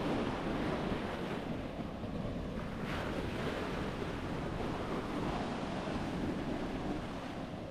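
Sea waves washing onto a sandy beach in surges that swell and ease, with wind blowing on the microphone.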